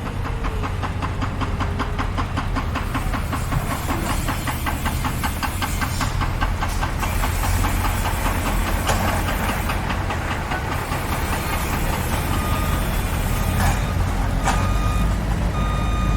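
Heavy construction machinery running with a steady deep engine rumble and a rapid, even mechanical clatter through most of the first ten seconds. In the last few seconds a reversing alarm beeps about once a second.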